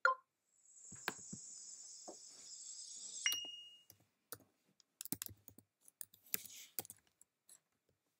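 Scattered clicks and taps from someone working a computer or device, with a soft high hiss in the first few seconds that ends in a short high beep.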